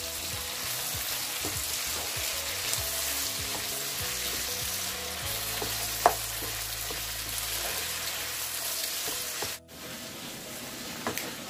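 Onion, tomato, chilies and herbs frying in oil in a non-stick pan with a steady sizzle, stirred and scraped with a wooden spatula, with one sharp knock about six seconds in.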